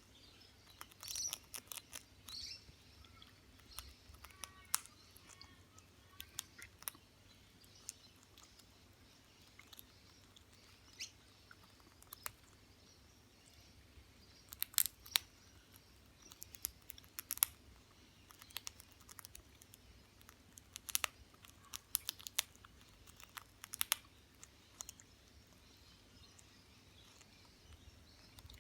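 Potato chips crunching and crackling in sharp, scattered snaps as a parrot eats. In the first several seconds the parrot also gives a few soft chirps.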